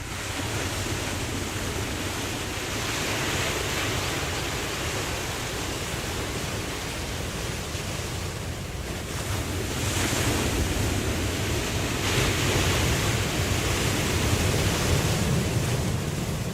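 Ocean waves washing in, the noise swelling and easing in several surges.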